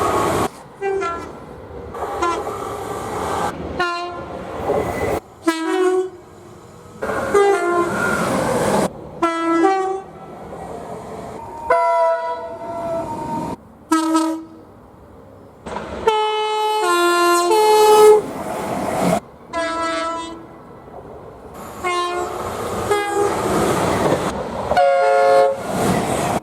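A rapid run of separate train horn blasts, cut together one after another. Each blast is a chord of steady tones, some stepping between two notes. Between the blasts is the noise of moving trains.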